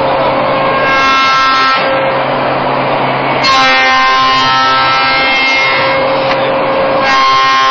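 MX7216 automatic copy shaper running: a steady, loud machine noise with a constant whine. A brighter, many-toned whine comes in about a second in, again from about three and a half to six seconds, and near the end.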